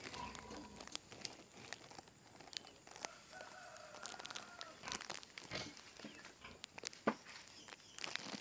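Faint crackling and rustling of dry twig and straw bedding under a farrowing sow. A rooster crows in the distance about three seconds in, for about a second and a half.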